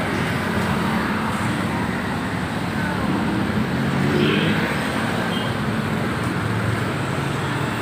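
Steady road traffic: engines and tyres of cars and trucks passing on a busy city avenue, with a low engine hum under a constant rush of noise.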